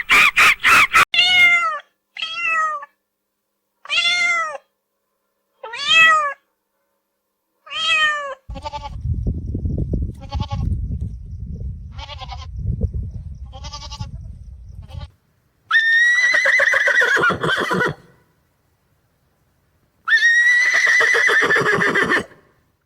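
Farm animal calls: a run of short bleat-like cries about every two seconds, then a stretch of low rumbling with short cries over it, then two long drawn-out calls.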